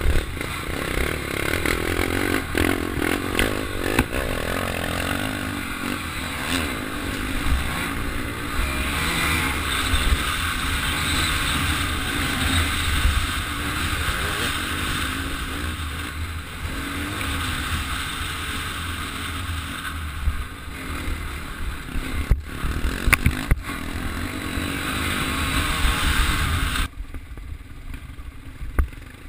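Dirt bike engine running while ridden along a rough dirt trail, its pitch rising and falling with the throttle, under heavy wind buffeting on the bike-mounted microphone, with a few sharp knocks from bumps. Near the end the sound drops suddenly to a quieter level.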